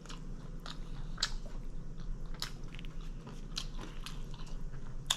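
Close-up chewing of a crispy fried chicken club sandwich with bacon: a string of irregular wet crunches and crackles, the sharpest one near the end.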